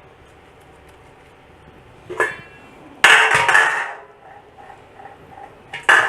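Cookware clatter: a lid or utensil knocking against the pot of cooked rice three times, the middle knock the loudest, ringing on briefly.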